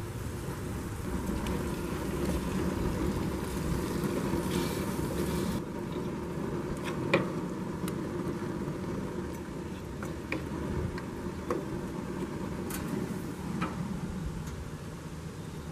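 Chicken thighs sizzling in hot oil in a steel paella pan on a gas grill, a steady crackling hiss. A wooden spoon knocks and scrapes against the pan now and then, the sharpest knock about seven seconds in.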